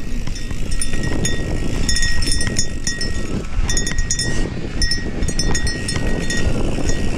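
Mountain bike descending a dirt trail at speed: heavy wind buffeting on the camera microphone and the rumble of tyres over rough dirt, with light metallic jingling in short bursts as the bike jolts.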